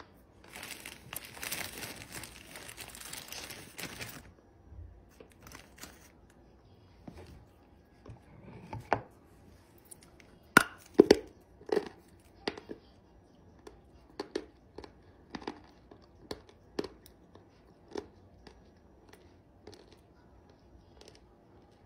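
Dry Ural clay crunching: a few seconds of dense rustling, then a long run of separate sharp crunches at irregular spacing, loudest a little before the middle.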